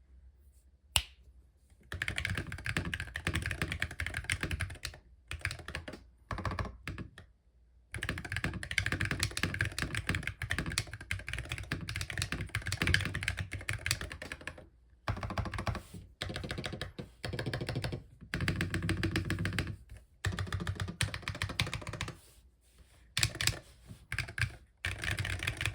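Typing on an MCHOSE Ace 60 Pro Hall effect keyboard with stock Otemu magnetic switches: a single keystroke, then bursts of fast typing broken by short pauses. Some right-side stabilizers rattle a little, which the owner says he can fix.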